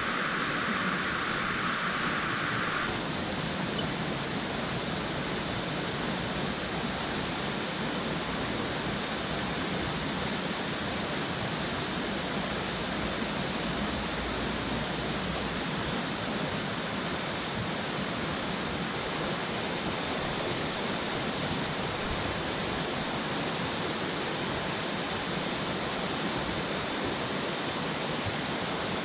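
Steady rushing of a river flowing over rocks. A brighter hiss on top of it cuts off abruptly about three seconds in.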